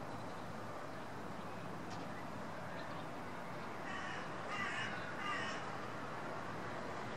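A bird gives three short, harsh calls in quick succession, about four seconds in, over a steady background hiss.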